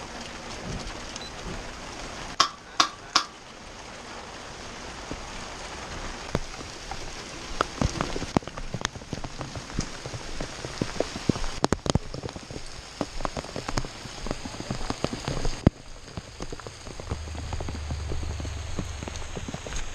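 Steady rainfall, with many close drop impacts clicking near the microphone in the middle of the stretch. Three sharp knocks come close together about two and a half to three seconds in.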